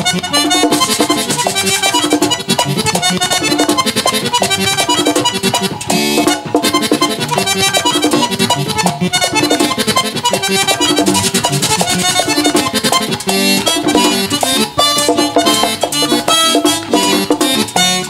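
Live Dominican merengue típico band playing an instrumental passage: the button accordion leads over the tambora drum, güira scraper and electric bass, with a busy, even percussive rhythm.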